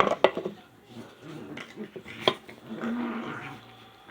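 A few sharp clicks near the start and another about two seconds in, then a dog whining faintly for about half a second near the end.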